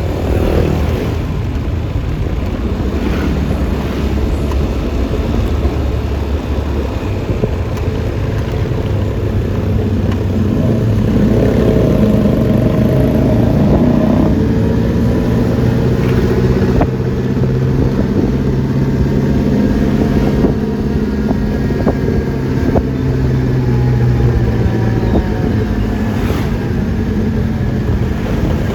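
Yamaha Lexi LX 155 scooter's 155 cc single-cylinder engine running under way, with wind and road noise. From about eleven seconds in, a steady engine hum with several tones comes to the fore.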